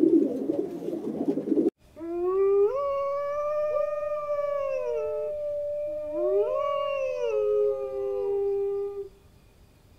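Rock pigeons cooing for the first second or two, then wolves howling together: long, drawn-out howls that overlap and glide in pitch, a second howl rising in about six seconds in, all ending together about nine seconds in.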